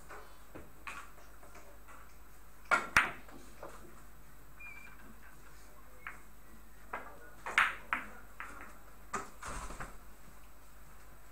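A few sharp clicks and knocks over a quiet, echoing billiard-hall room tone: two loud ones close together about three seconds in, and a scattering of smaller ones later.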